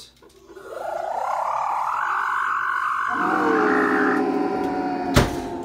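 Sonic screwdriver sound effect: a warbling electronic whine that rises in pitch for about three seconds. From about three seconds in, a lower, falling buzzing tone joins it, and a single sharp crack comes near the end.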